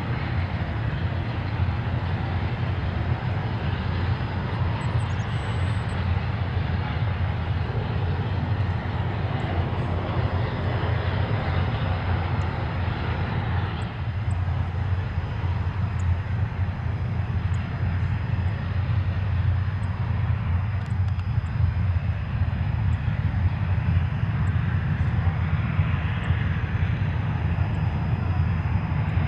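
Boeing B-29 Superfortress's four Wright R-3350 radial piston engines running at low taxi power, a steady low propeller throb.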